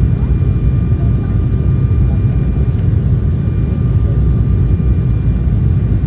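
Cabin noise inside an Embraer 190 on final approach with flaps extended: a steady, loud low rumble of its turbofan engines and the airflow, with a faint thin whine held steady over it.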